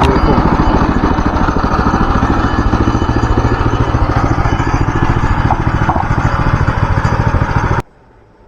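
Gas engine of a portable bandsaw sawmill running steadily at speed, then cutting off abruptly near the end.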